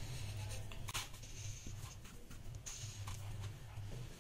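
Felt-tip permanent marker scribbling over paper: a few short, faint scratchy strokes over a low steady hum.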